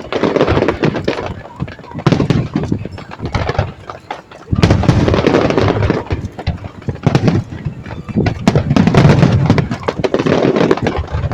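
Aerial fireworks going off in several dense volleys of rapid crackling and bangs. The loudest volley starts abruptly about four and a half seconds in.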